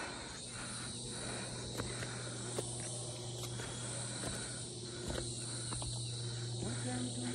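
Insects chirring steadily outdoors, over a steady low hum, with a few faint clicks.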